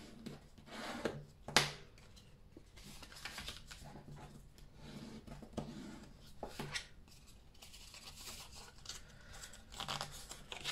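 Orange cardstock being folded along its score lines and creased with a bone folder: scattered paper rustles and scrapes, the sharpest about one and a half seconds in.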